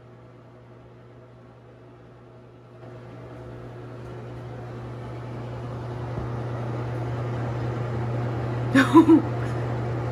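Steady low electric hum in a small tiled room, growing louder from about three seconds in. A short call from a white cat breaks in near the end.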